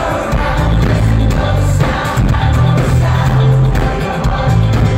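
A rock band playing live at loud volume, with a bass line repeating in held notes and singing over it.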